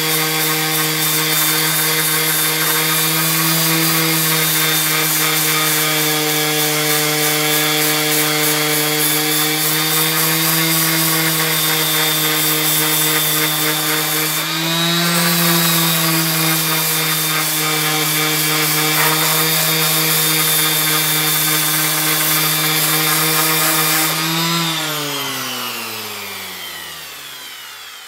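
Bosch random orbital sander running at a steady pitch, its pad sanding a wooden file handle. About 24 seconds in it is switched off and its pitch falls away as it winds down.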